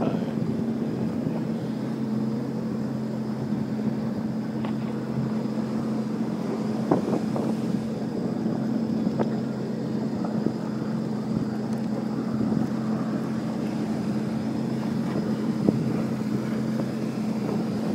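Watercraft engine, most likely a jet ski's, running steadily at an even pitch and speed.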